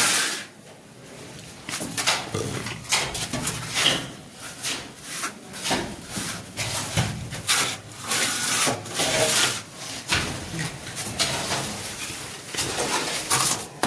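Plastering tools scraping and rubbing across plaster on a wall in repeated strokes, about two a second.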